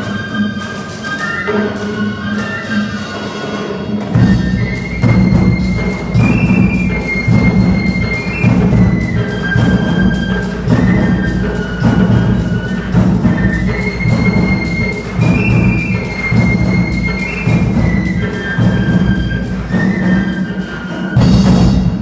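A cadet band of brass and drums playing a tune. About four seconds in, the drums and low brass come in and the music grows louder with a steady beat; it ends on a loud final chord near the end.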